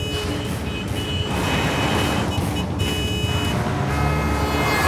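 Car engines running as vehicles drive along a road, with a dramatic music score underneath. The engine rumble grows louder near the end.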